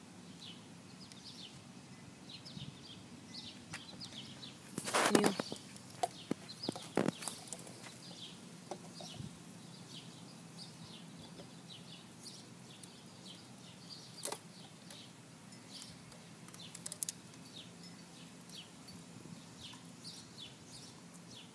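Small birds chirping off and on over a faint steady low hum. A loud rustling clatter comes about five seconds in, and a few knocks and clicks follow later.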